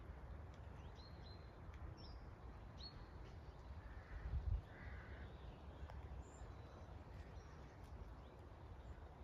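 Faint, scattered short high chirps of house martins feeding in flight, over a steady low rumble of wind on the microphone. About four seconds in, the rumble swells briefly and a hoarser bird call is heard.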